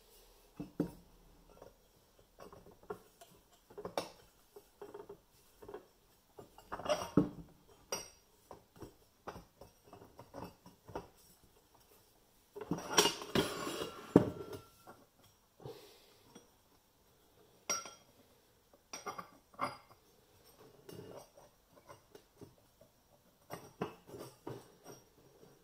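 Steel pipe sections, a steel shaft and flat discs being handled and fitted together on a metal bench top: scattered clinks and knocks, with a longer scraping rub about halfway through, the loudest part, as one pipe is slid onto another.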